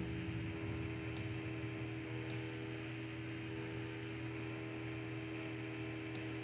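Steady low electrical hum and hiss of room tone picked up by a computer microphone, with three faint sharp clicks spread through it.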